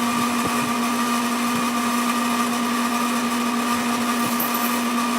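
Sidney metal lathe running steadily while it winds resistance wire into a coil on a rod: a constant motor-and-gear hum with a higher steady whine over it.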